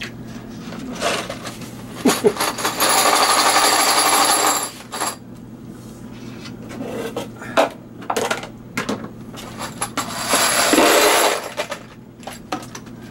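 43 Mauser brass cartridge cases clinking and rattling in a plastic colander as they are shaken in a pot of water to rinse out stainless steel tumbling pins. Two longer spells of rattling and splashing come about three seconds in and again about ten seconds in, with scattered metallic clicks between.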